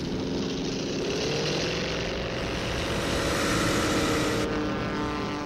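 Whirring, propeller-aircraft-like flight sound of a flying robot vehicle. It is a steady mechanical hum whose pitch slowly rises and then falls back.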